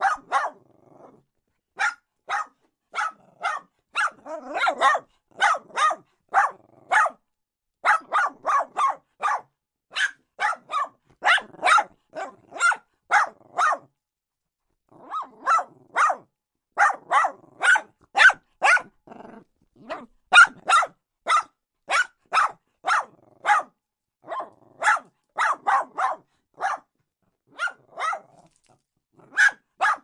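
A small dog barking over and over: short, sharp, high barks in quick runs of two to four a second, with brief pauses between runs and a longer pause of about a second midway.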